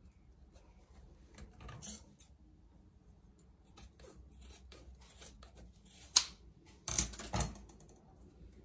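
Scissors cutting open the top of a pressure-cooked cardboard carton of condensed milk, with faint snips and rustling of the carton. There is a sharp click, then two louder crunches near the end.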